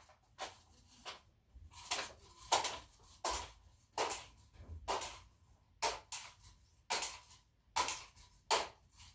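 Pneumatic air gun being pumped: about a dozen quick hissing strokes, one every half second to a second, charging it before a shot.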